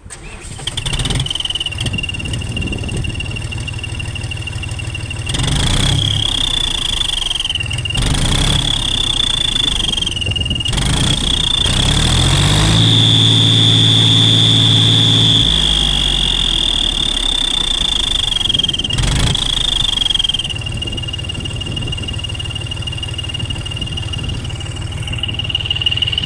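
John Deere 5050D tractor's three-cylinder diesel engine starting up, then revved several times. A turbo whistle fitted in the silencer sounds a steady high whistle that rises in pitch with each rev and falls back at idle, imitating a turbocharger's spool.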